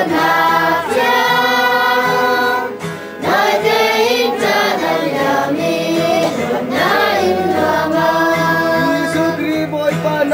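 A choir singing a slow song in long held notes, with a brief break between phrases about three seconds in.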